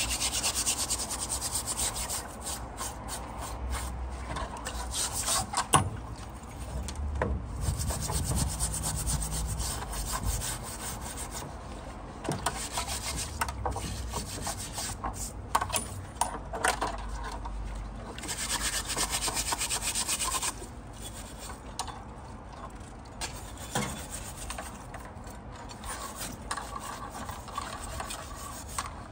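Gloved hand scrubbing the wet, rusty blade of a hand-forged brush axe (bill hook), rubbing off the rust loosened by electrolysis. The scrubbing comes in bouts of scratchy strokes, with a few sharp knocks.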